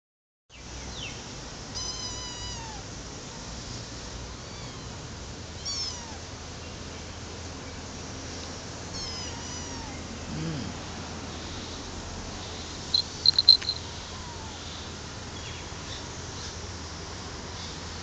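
Young tabby kittens mewing several times, each a short, thin, high-pitched mew that falls in pitch. About thirteen seconds in comes a quick run of sharp, very high chirps, the loudest sound, over a steady low background rumble.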